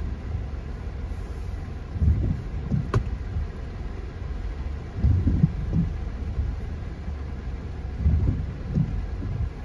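Inside a car's cabin in heavy rain: a steady low rumble of the car and the rain. Low thuds swell up in pairs about every three seconds, and there is one sharp click about three seconds in.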